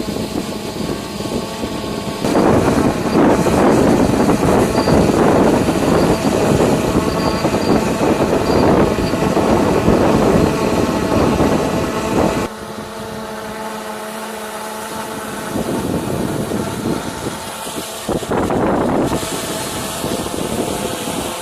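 Hubsan H109S X4 Pro quadcopter's propellers humming steadily while it holds position on GPS in strong wind. Heavy wind buffets the microphone from about two seconds in until a sudden drop about halfway through, and gusts again briefly near the end.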